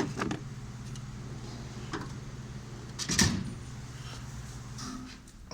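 Metal toolbox drawers being handled: a short knock at the start and a louder clunk about three seconds in, as a drawer shuts and the next is pulled open. A steady low hum runs under it and stops near the end.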